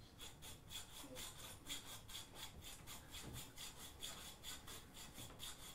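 Small hacksaw sawing back and forth through a metal bar: a faint, even rasping of quick strokes, about four a second.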